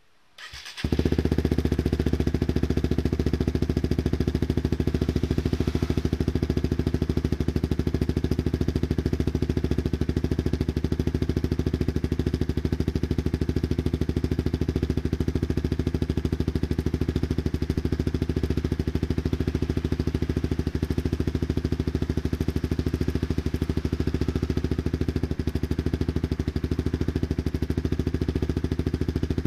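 Honda CBR150R's single-cylinder engine starting about a second in and then idling steadily through an aftermarket DX Generation Racing Xlash Carbon silencer.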